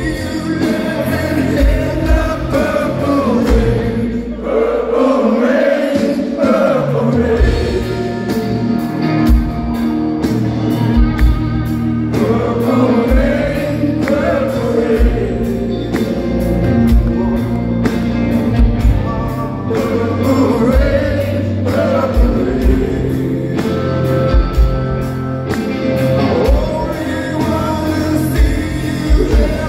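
Live rock band playing a slow ballad: a male lead vocal sings over electric guitars, bass and drums, with slow, steady drum hits.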